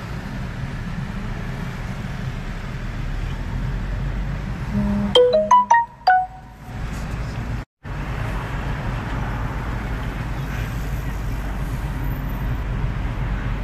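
Steady road noise heard from inside a vehicle in city traffic. About five seconds in, a quick electronic jingle of five or six short notes, like a phone's notification or ringtone, breaks over it. The background falls away around the jingle, and the sound cuts out completely for a moment shortly after.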